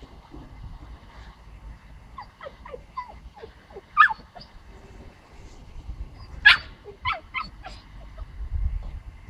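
A puppy giving a run of short yips and whimpers, many falling in pitch, with two louder yips about four and six and a half seconds in.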